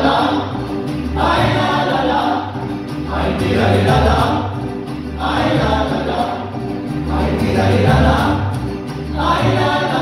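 Live mariachi ensemble playing a song, with several voices singing together in phrases of about two seconds over a steady, rhythmic bass line.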